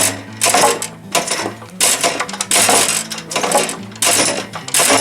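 A horse banging repeatedly: a series of sharp, loud bangs with a short ringing tail, about one every half second to a second, that make up the horse's run of seven bangs, its way of 'counting'.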